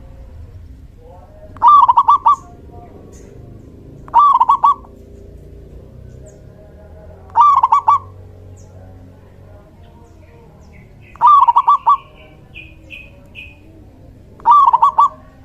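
Male zebra dove (perkutut) singing its quick staccato cooing phrase five times, each a fast run of notes lasting under a second, spaced a few seconds apart. A few faint, higher short chirps come between the fourth and fifth phrases.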